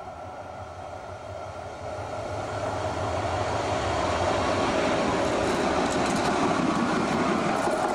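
Two-car light-rail tram approaching on the track and passing close at speed. The running noise of wheels on rail grows louder over the first few seconds, then holds loud with scattered clicks as the cars go by. A thin steady whine is heard at first.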